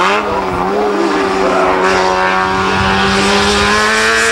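Small hatchback race car's engine held at high revs under full throttle on a hillclimb, a steady droning note that rises slowly in pitch as the car accelerates.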